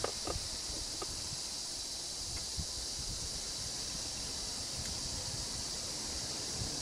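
Steady outdoor ambience: an even, high insect drone over a low rumble, with a few faint knocks in the first second.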